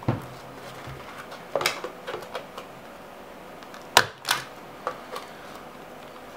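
Hand stapler clacking as staples are driven through paper and plastic diffuser layers into the rim of a cardboard Pringles can: a sharp clack about a second and a half in, then the loudest pair close together about four seconds in, with a few lighter ticks between.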